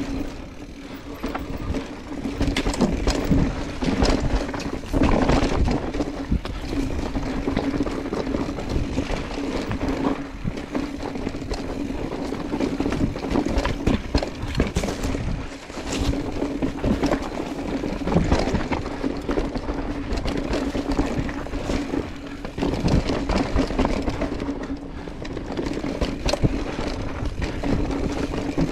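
Mountain bike running down a rough, technical trail: tyre noise and wind on the microphone, broken by frequent knocks and rattles of the bike over rocks and roots, over a steady hum.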